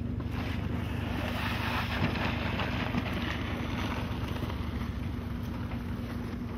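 Wind on the microphone over a steady low hum, with two light knocks about two and three seconds in.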